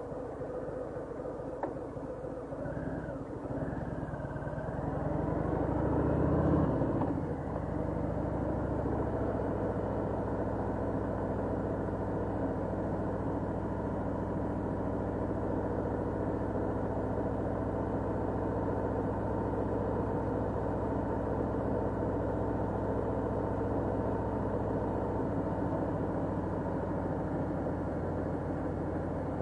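Cruiser motorcycle engine accelerating on the road. Its pitch and loudness climb over the first several seconds to a peak about six or seven seconds in, then drop back to a steady cruise for the rest of the ride.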